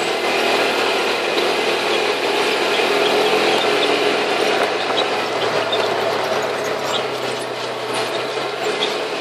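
ATV engine running steadily as it drives over a rutted dirt track, with scattered clicks and rattles from the machine, more of them in the second half.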